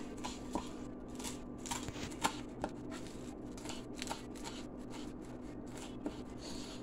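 Kitchen knife finely chopping fresh coriander and mint leaves on a wooden cutting board: irregular light taps of the blade on the board, a few sharper than the rest, over a faint steady hum.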